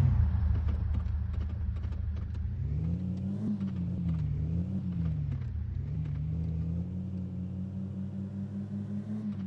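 Mahindra Thar 4x4's engine running while driving. Its revs drop at the start, rise and fall twice in the middle, then hold steady.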